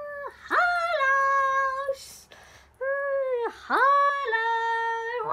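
A child's high-pitched voice holding long, steady wailing notes: three of them, each opening with a quick upward scoop in pitch.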